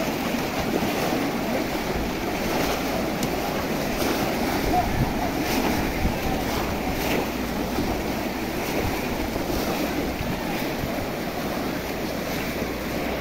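A large crowd wading and splashing through shallow muddy water while plunging bamboo basket fish traps, a steady dense wash of splashing with wind on the microphone.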